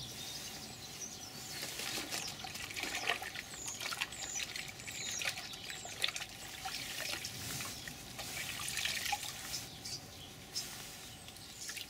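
Sponges being rinsed in a bucket of water and squeezed out: irregular splashing, sloshing and dripping of water into the bucket.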